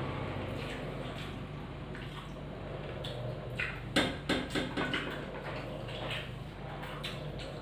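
Eating by hand: fingers mixing and scooping watery curd rice (dahi pakhal) on steel plates, with wet squishing and a short run of clicks and smacks about four seconds in, over a steady low hum.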